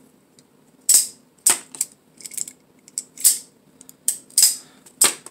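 Out-the-front automatic knife (Atomic Defender, a Microtech Combat Troodon copy) firing and retracting its blade, a series of sharp clicks and snaps roughly every half second to second. Its spring has been stretched to lighten the action, and it now fires with much less power.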